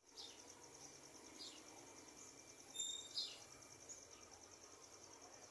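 Faint outdoor ambience: a high insect trill pulsing steadily, with a few short bird chirps, the loudest about three seconds in.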